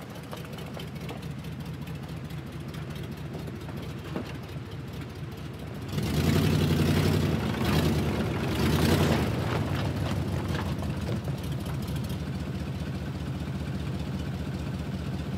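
A vehicle engine running steadily, picking up and running louder for about three seconds from about six seconds in, then settling back to a steady run.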